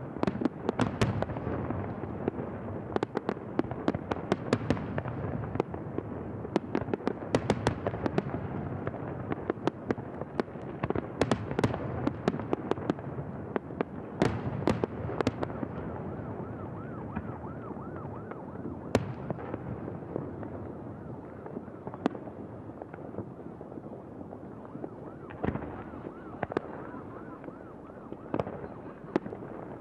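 Fireworks display: a continuous barrage of aerial shell bursts, many sharp bangs over a rumbling crackle. It thins out a little past the middle and picks up again near the end.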